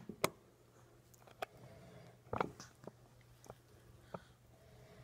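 A baby eating soft fruit: scattered small clicks, taps and wet mouth sounds as her hands work the fruit on the plastic high-chair tray and she chews. The loudest cluster comes about two and a half seconds in.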